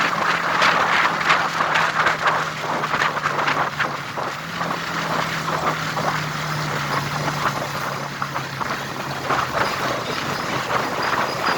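A vehicle's engine running at a steady speed, a low hum under a dense rushing, crackling noise that shifts slightly in pitch about halfway through.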